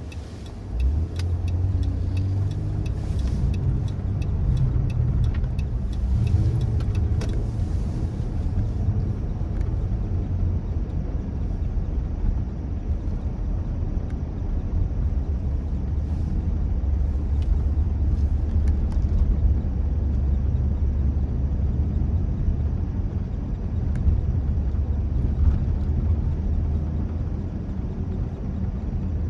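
A car driving on a snowy road, with a steady low rumble of road and engine throughout. A run of sharp ticks sounds over the first several seconds.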